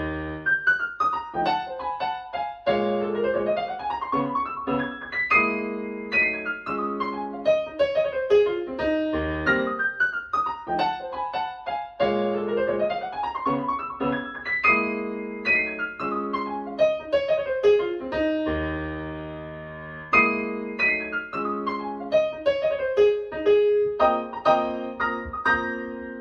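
Solo piano music: quick runs of notes sweeping down and up the keyboard, a held chord about two-thirds of the way through, and a closing chord held near the end.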